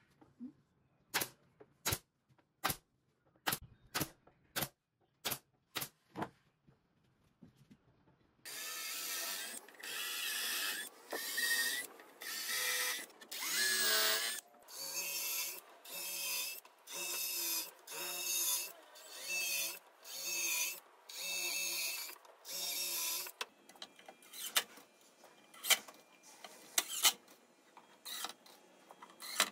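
A pneumatic brad nailer firing about nine sharp shots, one every half-second or so. About 8 seconds in, a cordless drill starts boring holes into wood in a steady series of short bursts, each rising in pitch as the motor speeds up. After about 23 seconds come a cordless drill's short bursts and clicks as it drives screws.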